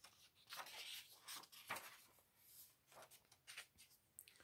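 Faint rustling of a paper page in a hardcover picture book being turned and smoothed flat by hand, a few soft brushing strokes.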